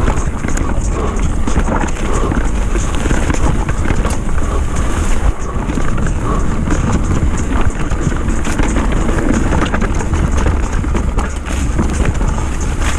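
Mountain bike riding fast down a dirt downhill trail: a steady rush of wind on the camera microphone and a low rumble from tyres on the dirt, with frequent clicks and rattles from the bike.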